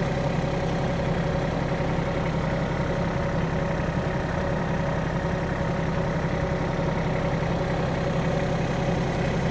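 An engine idling steadily with an even, low drone throughout.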